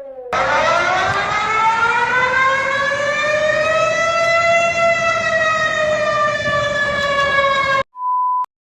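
Emergency-alert siren wailing: a loud, rough wail that rises in pitch over about four seconds, levels off and sags slightly, then cuts off suddenly. A short steady beep follows near the end.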